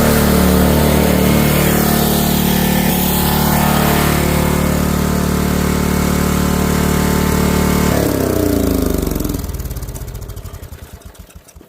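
A small engine running steadily, then shut off: about eight seconds in its pitch falls, and it slows through widening firing pulses to a stop near the end.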